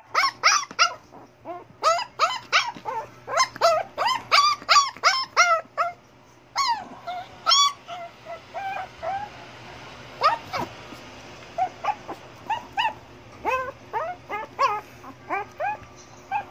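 Shih Tzu whining in a string of short, high cries that fall in pitch, quick and close together at first, then more spaced out after a brief pause about six seconds in: the dog is begging to be let outside.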